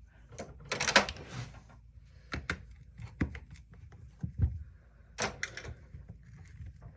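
Scattered clicks and knocks from handling a DeWalt DCF885 impact driver and screwdriver on a workbench while taking the tool apart. The loudest knock comes about a second in.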